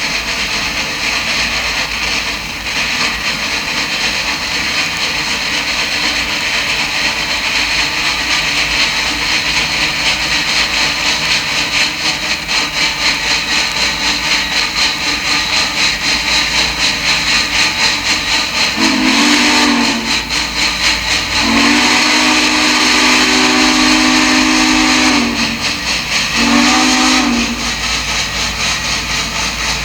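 Duluth, Missabe and Iron Range Yellowstone No. 225, a 2-8-8-4 articulated steam locomotive, working along with fast, steady exhaust chuffing and steam hiss. In the second half its steam whistle sounds three times: a short blast, a long one, then another short one.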